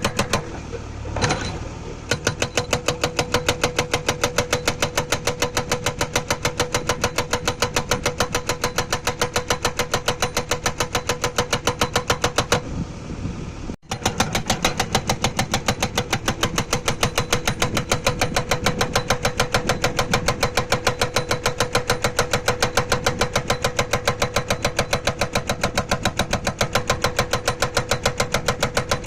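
Hydraulic rock breaker on a JCB 3DX backhoe loader hammering hard stone in rapid, even blows over the machine's running engine. The hammering stops briefly about a second in and again around thirteen seconds in.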